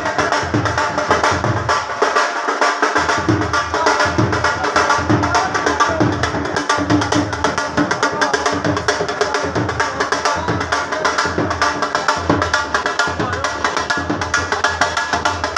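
Dhol drum beaten in a fast, steady rhythm of repeated strokes.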